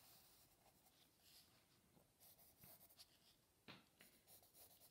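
Pencil lead scratching faintly across paper in short strokes as lines are drawn, with a single light tap about three-quarters of the way through.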